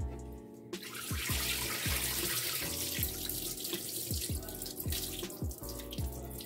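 Rinse water from washed rice pouring out of a rice-cooker pot into a sink, streaming over the fingers that hold back the rice; the pour starts about a second in and runs steadily. Soft background music with a beat underneath.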